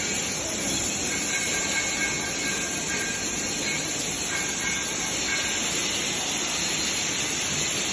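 Steady hiss of a TIG (GTAW) welding arc on a 2-inch pipe, with a faint high whine that comes and goes in the middle.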